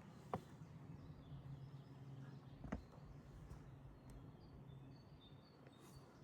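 Footsteps on a stone path, two sharp steps, one just after the start and one under three seconds in, over quiet outdoor ambience. A few faint bird chirps come later.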